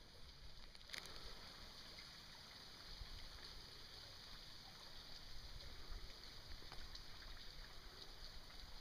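Faint water sounds around a drifting kayak on a river, with a single sharp click about a second in and a few light ticks after.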